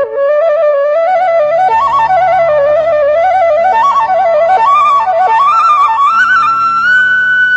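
Flute playing a slow, ornamented melody that climbs gradually, over a low drone that comes in about two seconds in, settling on a long held high note near the end.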